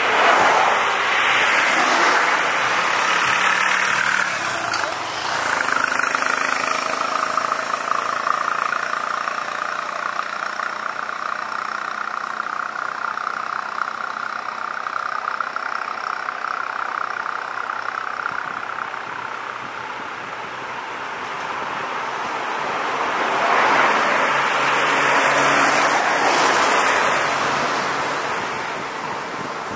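Road vehicles' engines running and passing close by: a steady motor-and-tyre noise that swells twice, near the start and again near the end.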